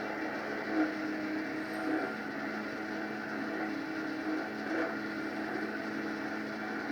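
Mini jet boat's engine running at a steady speed, its pitch shifting slightly now and then.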